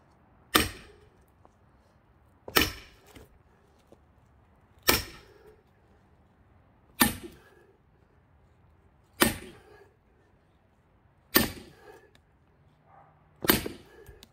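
Seven hard, sharp blows about two seconds apart, each with a short ring: a hammer pounding an axe driven into an already-cracked pine log to split it.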